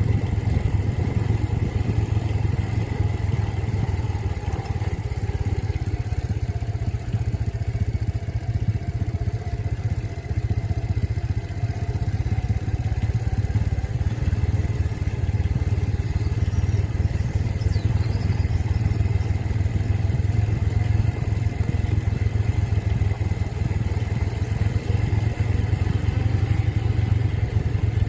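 A vehicle engine running steadily, heavy in the low end, with a faint pitch that wavers slightly.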